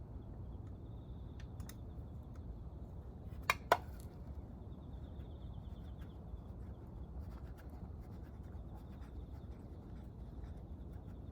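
Two sharp clicks in quick succession about three and a half seconds in, from tools or parts being handled during engine disassembly, with a few fainter ticks. Under them runs a steady low hum and a faint, steady high-pitched trill.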